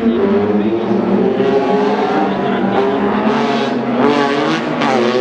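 Rally car engine running hard, its pitch rising and falling with the revs and climbing steeply near the end as it accelerates.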